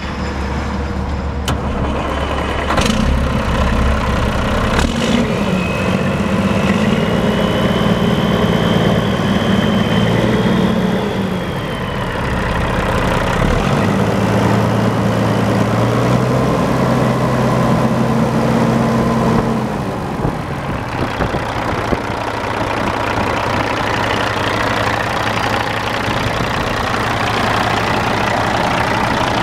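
Diesel engine of a 2005 Peterbilt 379 truck running with the hood tilted open. It is raised from idle twice and held up for several seconds each time, then drops back to a steady idle about twenty seconds in. A high whine rises and falls during the first rev, and a few sharp clicks come in the first seconds.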